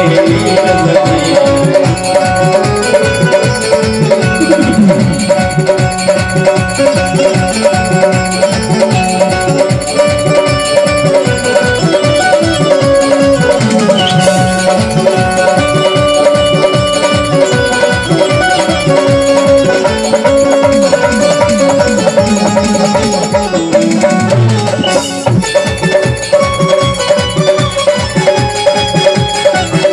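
Instrumental interlude of a live Hindi devotional song: electronic keyboard and Indian banjo (bulbul tarang) play the melody over a steady beat, with a note held underneath. The beat drops out briefly about three-quarters of the way through, then resumes.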